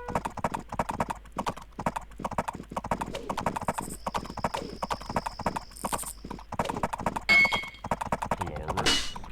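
A fast, uneven run of sharp clopping knocks, several a second, with a thin high steady tone for a couple of seconds in the middle.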